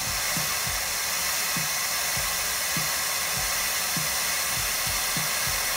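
Steady hiss of compressed air from the truck's air system as the Versatran Retriever's air-operated loading ramp lowers.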